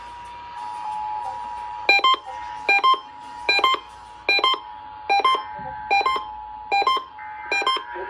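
Emergency Alert System two-tone attention signal, a steady dual tone heard over a scanner radio's speaker, marking an EAS Required Monthly Test. About two seconds in, the scanner begins an alert beeping over it: a pair of short beeps about every 0.8 s.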